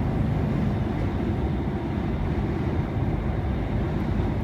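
Steady low rumble of engine and tyre noise inside a lorry cab cruising on a motorway.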